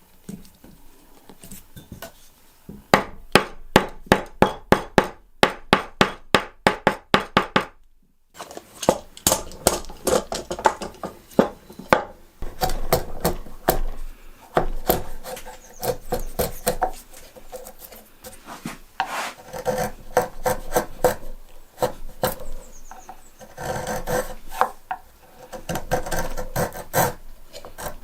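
A hand tool working wood with repeated scraping strokes, even at about three a second at first, then more irregular after an abrupt break about eight seconds in.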